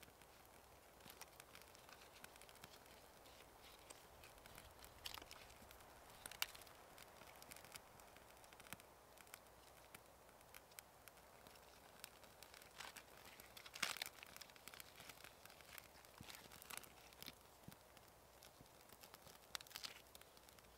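Faint scattered crackles, clicks and rustles from a small birch-bark fire just lit in a stone fire ring and from hands handling bark and kindling beside it, with a few sharper snaps.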